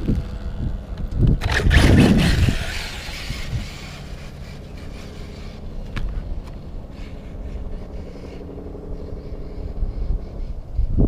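Brushless electric 1/8 RC buggy on a 4S battery making a speed run: a loud rushing pass about two seconds in, then a fainter steady hum from its drive. Wind rumbles on the microphone.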